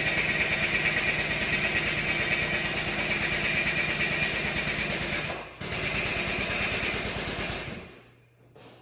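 Welder laying a bead on steel tubing: a steady fast crackle that breaks off for a moment about five and a half seconds in, starts again, and stops near the end, leaving a low machine hum and a few faint ticks.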